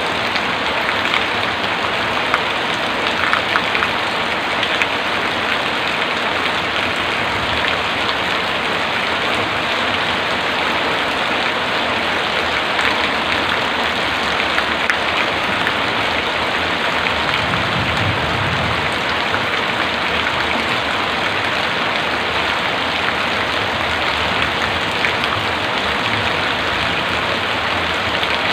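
Heavy rain falling steadily, a dense even hiss with scattered drops pattering on surfaces, and a brief low rumble about two-thirds of the way through.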